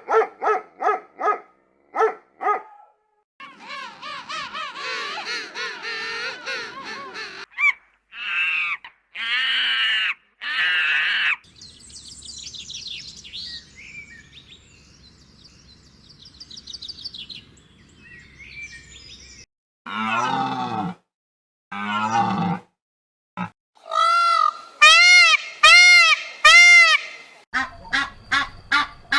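A string of different animal calls edited one after another, mostly bird and fowl calls, ending in rapid repeated honking calls.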